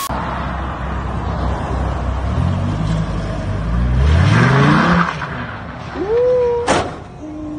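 Sports car engine revving hard, its pitch climbing for about two and a half seconds as the car accelerates and slides, with tyre squeal at the peak. Then a short rising cry and a sharp click near the end.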